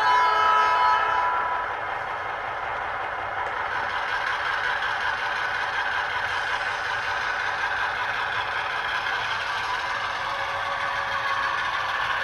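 Digital sound from the ESU LokSound decoder in an HO scale MP15AC model diesel switcher, played through the model's small speaker. A horn blast ends about a second and a half in, then the simulated diesel engine runs steadily and picks up about four seconds in as the locomotive starts to move.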